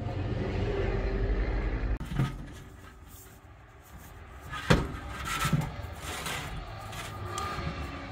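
A steady low rumble that cuts off abruptly about two seconds in, followed by scattered knocks and clanks, the loudest a single sharp knock near the middle.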